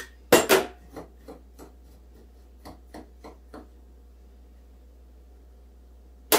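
Light kitchen clatter: a measuring spoon clinking against a stainless steel stand-mixer bowl as salt is added. Two sharp clinks at the start and a few soft taps, then quiet until another sharp clink at the end.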